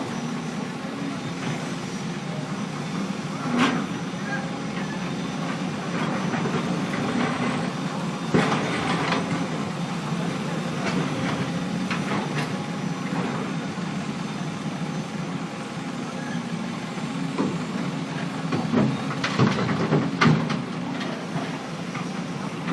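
Heavy diesel construction machinery running steadily on a road-scarifying site, with several sharp knocks, a cluster of them near the end.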